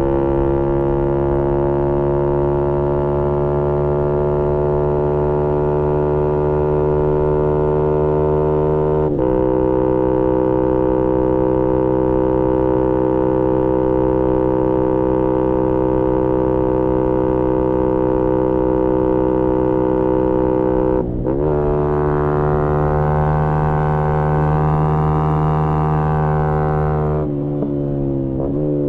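2018 Yamaha MT-125's single-cylinder four-stroke engine through a GPR aftermarket exhaust, running at high revs under load. The pitch climbs slowly, then dips briefly twice with quick upshifts, about nine and twenty-one seconds in; near the end the revs fall off as the throttle closes.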